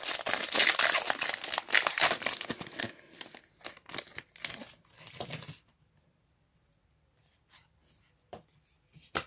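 A foil Pokémon booster pack wrapper crinkling and tearing as it is ripped open by hand, for about five and a half seconds. Then it falls quiet, with a few faint taps and one sharp click near the end.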